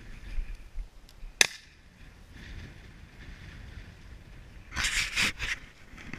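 Walking through tall dry grass: stems rustle and brush against the body-worn camera, loudest in a burst near the end. One single sharp crack about a second and a half in is the loudest sound.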